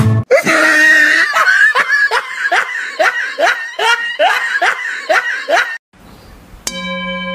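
A person laughing hard, a rapid run of short laughs each falling in pitch for about five and a half seconds, stopping abruptly. Near the end, steady held music tones begin.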